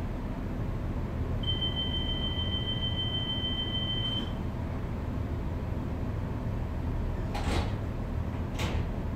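Class 142 Pacer railcar idling at a stand, heard inside the passenger saloon: a steady low diesel hum, a steady high beep lasting about three seconds, and two short air hisses about a second apart near the end.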